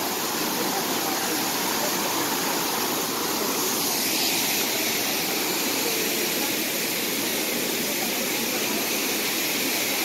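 Steady rush of falling water, like a waterfall, a constant hiss-like roar whose tone shifts slightly about four seconds in.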